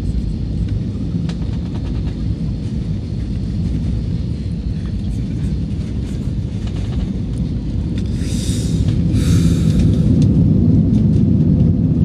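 Airliner cabin rumble from the jet engines and airflow during a low approach, growing louder about nine seconds in. Two brief hissing noises come just before the rise.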